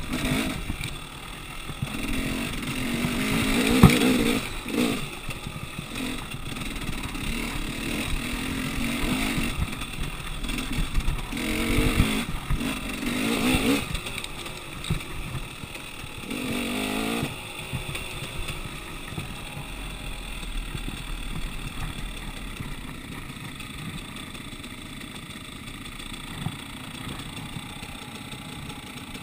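Dirt bike engine revving up and down in repeated bursts as it is ridden along a rough bush track, with rattling over the bumps. After about seventeen seconds it settles to a lower, steady, quieter run, like idling as the bike pulls up.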